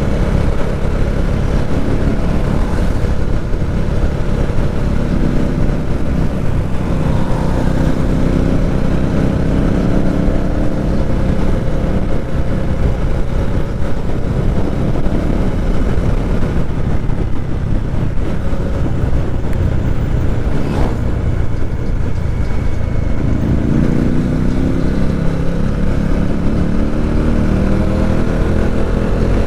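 Motorcycle engine and exhaust while riding: a steady loud run whose note rises and falls with the throttle, climbing again as it revs up over the last few seconds.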